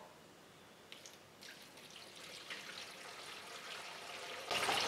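Windshield washer fluid poured into a plastic funnel: a few faint drips, then a trickle that builds into a steady pour near the end.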